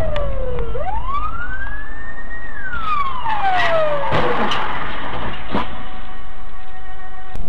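Police car siren wailing: one slow rise and fall in pitch over loud, steady low rumbling noise, with a few quick sharp swishes in the middle.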